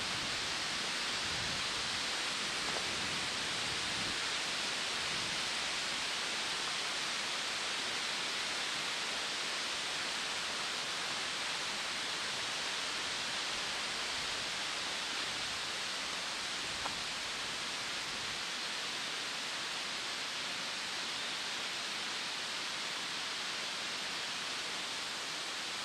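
Steady, even rushing hiss with no change in level and no distinct events, strongest in the upper middle range, like outdoor water or wind noise.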